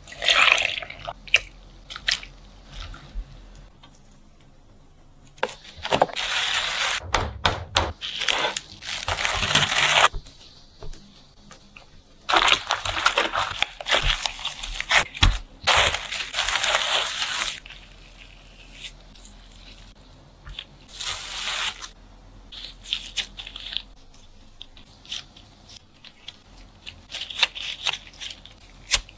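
Gloved hands mixing and kneading a soft, sticky rice-flour dough: wet squishing and crackling in several bursts a few seconds long, with quieter handling sounds in between.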